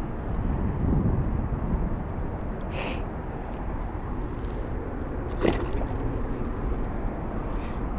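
Steady low outdoor rumble, with two brief splashy sounds about three and five and a half seconds in as a small fish is released back into the river.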